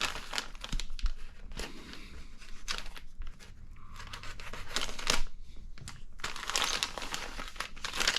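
Plastic kit parts bag crinkling and rustling as it is torn open and handled, in irregular crackles.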